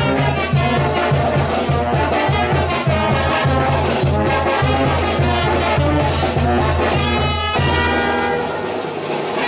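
Mexican banda brass band playing while marching: a sousaphone bass line under trombones and trumpets, with a steady beat. The low sousaphone part drops out near the end.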